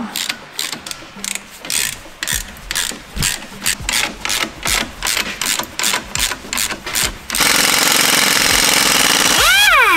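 Ratchet clicking in short, irregular runs. About seven seconds in, an impact wrench hammers loudly for about two seconds, undoing a bolt on the strut and hub, then its motor whines down with a falling pitch.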